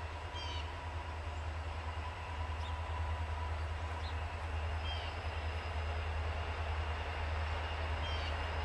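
Distant diesel freight train led by an EMD SD70M-2 approaching, a low steady rumble that slowly grows louder. A few short bird chirps over it.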